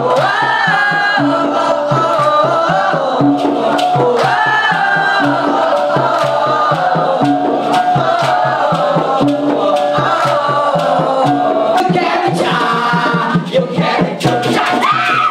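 Dikir barat chorus singing a chant-like melody together over a steady beat of hand drums. About thirteen seconds in the rhythm breaks up briefly before the singing picks up again.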